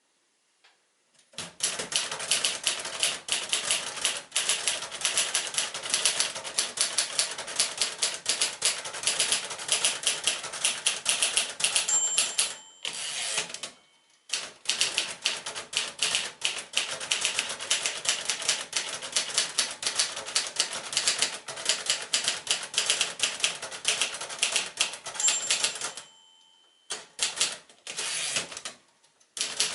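1956 Royal Companion manual portable typewriter being typed on in fast, steady runs of keystrokes. Twice a short ringing tone, typical of the margin bell near the end of a line, comes just before a brief pause and a carriage return, and typing picks up again.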